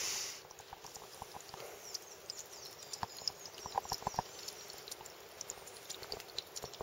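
Water dripping from a small seep spring into a stainless steel pot: scattered, irregular plinks and ticks. A brief soft rustle comes right at the start.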